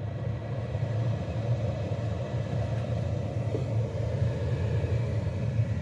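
Car heater blower fan running steadily, blowing air with a low hum and rush and no whistle. The whistle had come from the cabin air filter, which has now been removed.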